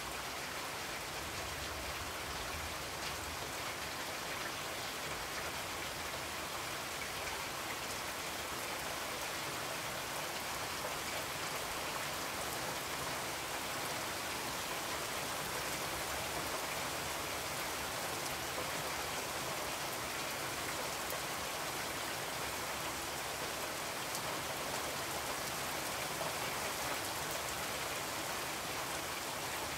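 Steady rain: an even hiss with a faint patter of drops.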